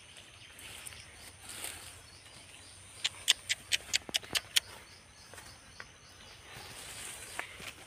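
Outdoor rural ambience with a faint, steady high insect drone, broken about three seconds in by a quick run of about eight sharp clicks lasting under two seconds.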